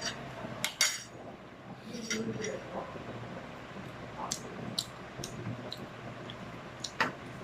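Cutlery clinking against dishes at a meal: about six sharp, separate clinks spread over several seconds, with quiet gaps between.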